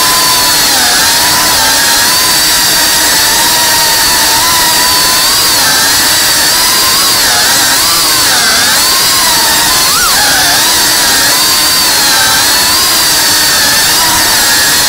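FPV drone's brushless motors and propellers whining, the pitch rising and falling constantly with throttle changes over a steady hiss of rushing air. About ten seconds in there is a quick throttle punch, with the pitch briefly jumping up.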